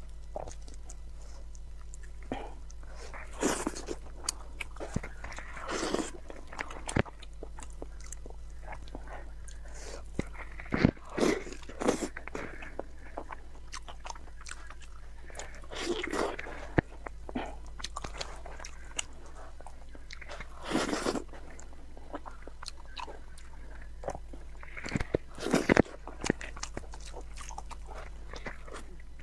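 Close-miked eating of braised meat off the bone: wet biting and chewing in irregular bursts every few seconds, with sharp clicks and smacks, over a steady low hum.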